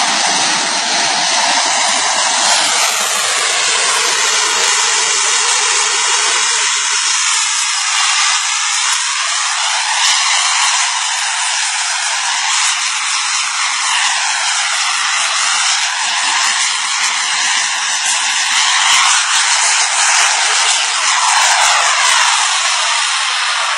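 Radio-controlled model jet in F-16 style, its engine giving a steady, loud rushing hiss as it hovers nose-up close to the ground, the tone sweeping up and down as the model shifts about.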